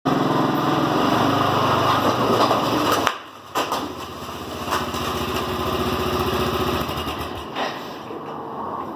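Quad ATV's small engine running as it passes close by. The sound drops off sharply about three seconds in and keeps running fainter as the ATV moves away, with a few brief knocks.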